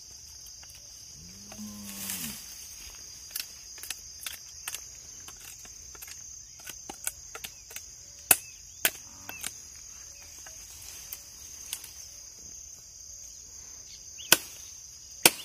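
Machete striking and hacking at a dry branch: irregular sharp cracks and knocks, with a loud pair about eight seconds in and more hard blows near the end. A steady high insect buzz runs underneath.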